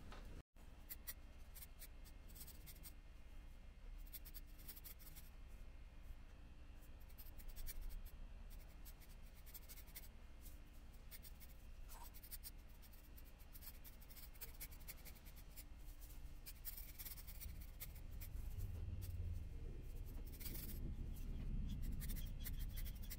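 Hand scissors trimming the tufted yarn pile of a rug, a steady run of small, irregular snips and scratchy rustles.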